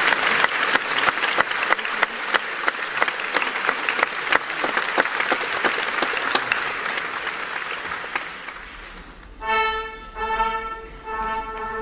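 Theatre audience applauding, the clapping slowly dying away over about eight seconds. About nine and a half seconds in, the orchestra starts up with held notes.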